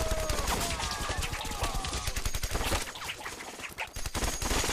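Heavy gunfire from a war-film battle: many rifle and machine-gun shots in rapid, overlapping succession, with gliding whine-like tones over the first two seconds.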